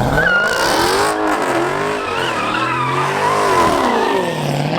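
A muscle car's engine revving hard, its pitch climbing and falling back about three times, with tyres squealing.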